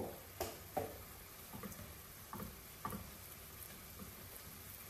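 Burger patties sizzling faintly in a greased frying pan, with scattered clicks and taps as the patties are smashed down.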